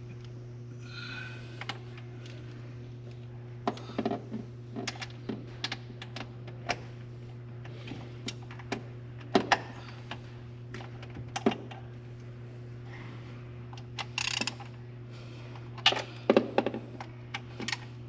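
Irregular metallic clicks and clinks of hand tools working on an engine's intake manifold bolts as they are tightened down, over a steady low hum.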